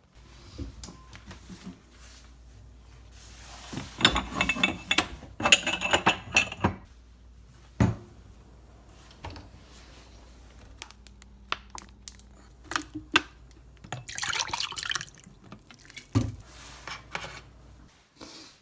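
Liquid being poured into a glass in a few short bursts, with sharp clicks and knocks in between.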